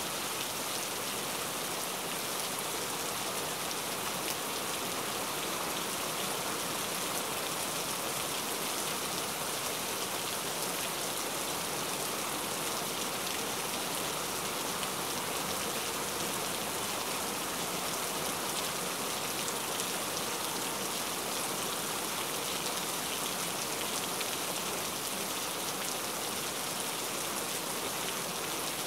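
Steady, uninterrupted rain: an even patter of many drops that holds at one level throughout.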